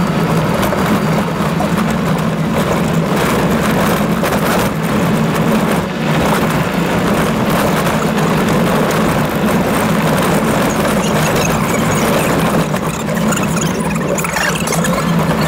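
Toyota Land Cruiser driving over a rough gravel track, heard from inside the cabin: a steady engine drone with tyre and road noise and scattered small knocks and rattles from the bumps.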